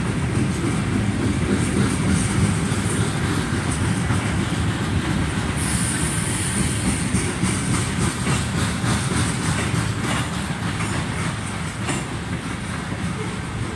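Freight train of covered hopper cars rolling past: a steady rumble of steel wheels on rail, with the clicking of wheels over rail joints in the second half. A brief high-pitched wheel squeal comes about six seconds in.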